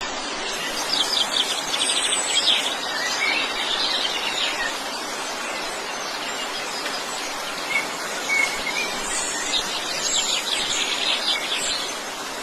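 Wild birds chirping and trilling in two spells, about a second in and again around nine seconds, over a steady rushing background noise.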